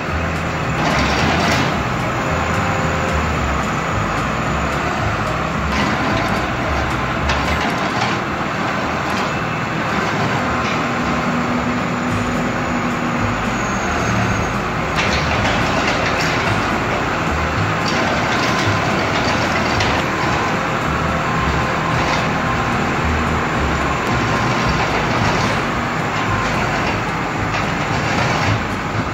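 New Holland TL100 tractor's diesel engine running steadily while the Hustler SL360X bale feeder on its loader unrolls a round hay bale, with scattered short knocks from the machinery.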